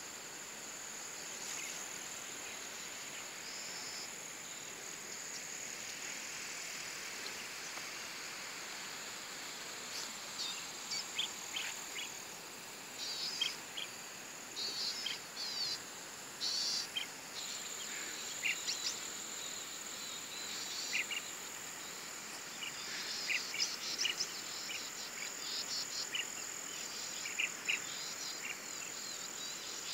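Insects trilling in a steady high drone, with many short high chirps over it from about a third of the way in.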